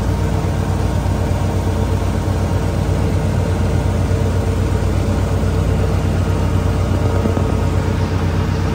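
Concrete batch plant machinery running with a steady low hum and a thin, steady higher tone over it.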